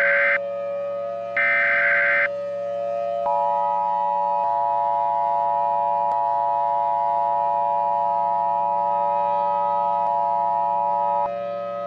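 Emergency Alert System tones. Two buzzy SAME header data bursts, about a second each, come in the first two seconds. They are followed by the EAS two-tone attention signal, a steady dual tone held about eight seconds, which cuts off near the end. A steady low drone runs underneath throughout.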